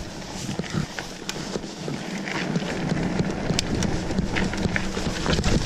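Mountain bike riding down a dirt forest trail: tyres rolling over the ground with a steady rush, and frequent knocks and rattles from the bike as it runs over bumps.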